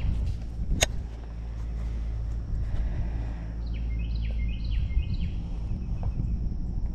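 Steady low rumble of outdoor noise on the microphone as a baitcasting rod is cast, with one sharp click about a second in. Around four to five seconds in, a bird sings a quick run of repeated chirps.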